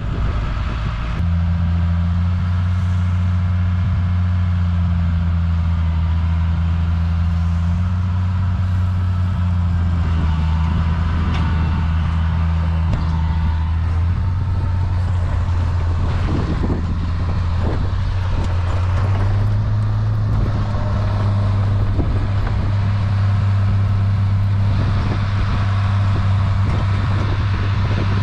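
A vehicle engine running steadily: a loud, low, even hum that comes in about a second in and steps slightly higher in pitch about two-thirds of the way through.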